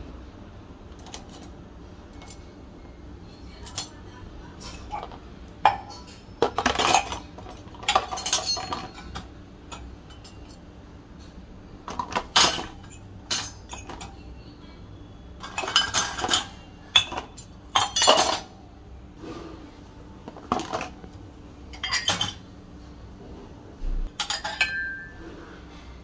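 Steel cutlery and ceramic mugs clinking against each other and the wire racks of a dishwasher as washed dishes are handled. The clatter comes in irregular clusters with short quiet gaps between them.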